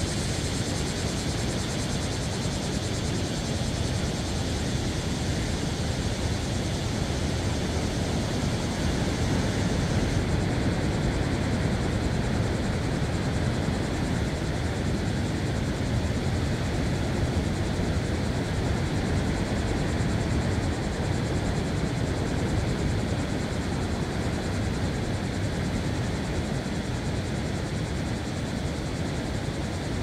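Ocean surf washing steadily against a rocky shore, an even low rush with no breaks.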